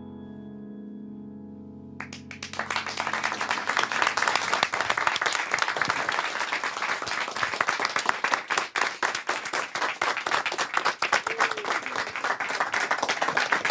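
The last piano chord of the song rings on and fades, then about two seconds in an audience breaks into sustained applause.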